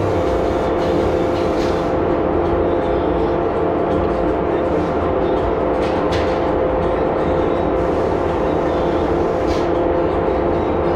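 Steady machine drone with a constant two-note hum, from the spray booth's exhaust fan and the air pump feeding the spray gun running while a cabinet is sprayed with conversion varnish.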